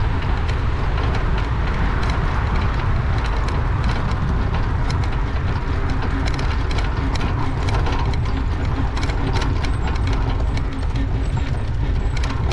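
Riding a rusty bicycle with the camera on board: a steady low rumble of wind on the microphone and tyres rolling on a paved bike path. From about four seconds in, the bike rattles in quick, irregular clicks.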